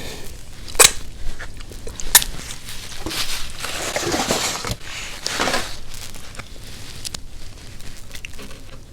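Close-miked eating and food-handling sounds: two sharp clicks about one and two seconds in, then a few seconds of noisy rustling and crunching.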